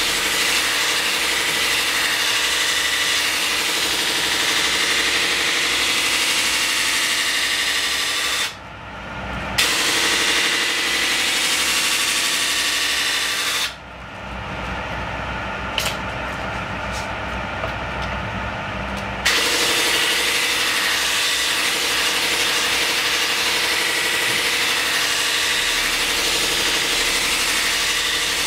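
A blade is pressed against the spinning wheel of a sharpening machine (Feinpließtbock), giving a loud, steady grinding hiss over the machine's running hum. Twice the grinding stops, briefly about a third of the way in and for about five seconds around the middle, leaving only the machine running with a few light clicks, then the grinding resumes.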